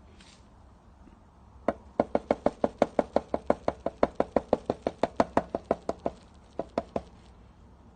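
A rapid, even series of sharp knocks, about seven a second for some four seconds, then a few stray knocks.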